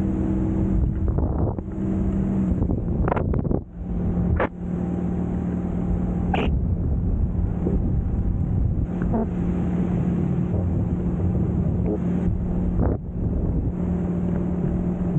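Wind buffeting the microphone during a parasail ride, a dense low rumble with a steady low hum running under it. A few sharp clicks come through about three to six seconds in.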